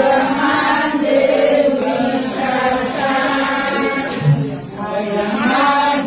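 A group of women chanting together in a sung chorus, many voices overlapping.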